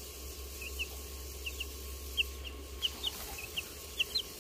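Young chicks, about two and a half weeks old, peeping: short, high, slightly falling peeps, about three a second, over a low steady hum.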